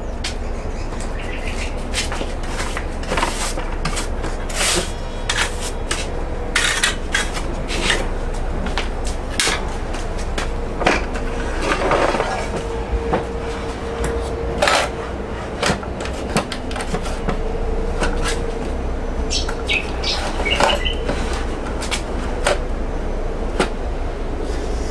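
Repeated knocks and clatter of rosewood pieces being handled and pushed across a table saw's steel table, over a steady low hum.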